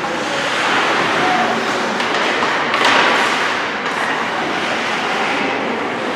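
Steady din of a hockey game in a rink, with a brief louder swell about three seconds in.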